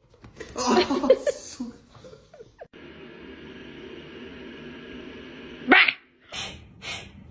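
A pug making a few short vocal sounds in the first two seconds, then a steady faint room hiss and a short loud sound near the end.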